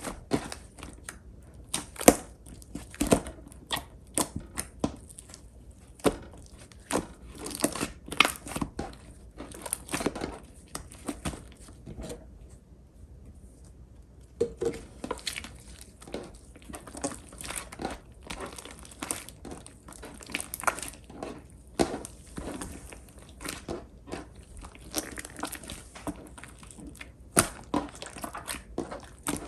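Clear pink slime being squeezed and pressed by hand, giving irregular crackling pops and clicks, with a brief lull about twelve seconds in.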